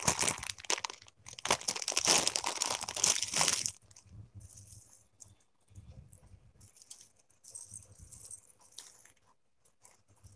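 Plastic wrapping crinkling and crackling as it is handled, dense and fairly loud for the first four seconds, then scattered softer rustles and light clicks.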